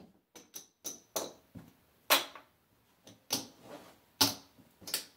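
Casino chips clicking against one another as they are picked up, stacked and set down on a craps table layout: about ten sharp, irregular clicks.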